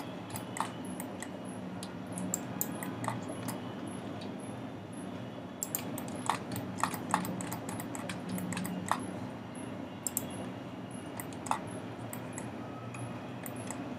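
Scattered, irregular clicks of a computer mouse and keyboard, over a steady low hum.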